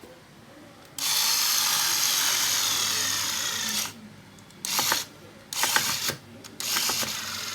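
Black & Decker folding mini cordless screwdriver running: one steady whir for about three seconds, then three short bursts of its motor and gearing.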